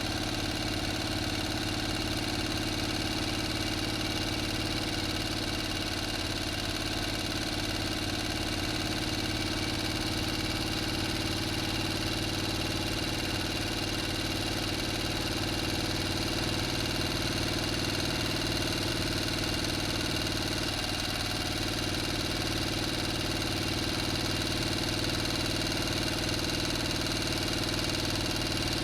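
A motor running steadily at an unchanging speed: an even hum made of several fixed tones, with no revving.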